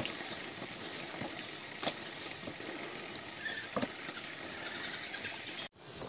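Footsteps on a bamboo footbridge, with a few sharp knocks from the bamboo poles about two seconds apart, over a steady high-pitched background hum; the sound drops out for a moment near the end.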